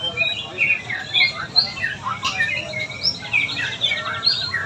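Many caged yellow-vented bulbuls (trucukan) chirping and squawking over one another in short, sharp calls, with a quick rattling trill about three seconds in, over a low background hum.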